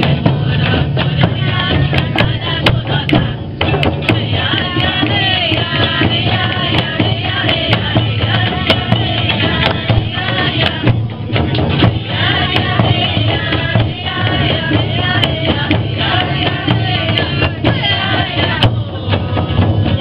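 A group of voices singing together to the beat of several hand-held frame drums.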